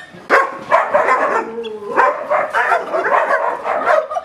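Dog barking in a rapid, unbroken run, about two or three barks a second, in the guarding behaviour drilled in aggression training.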